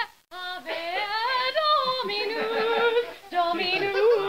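A woman singing in a high voice with a wide, wobbling vibrato, her pitch sliding up and down. The sound cuts out for a moment just after the start.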